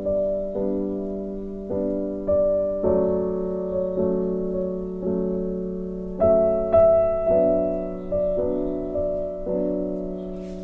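Background piano music: slow, gently struck chords that ring and fade one after another.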